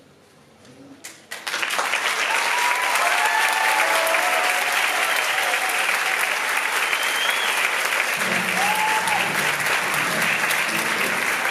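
Theatre audience breaking into applause about a second and a half in, after a near-quiet moment, and clapping steadily on.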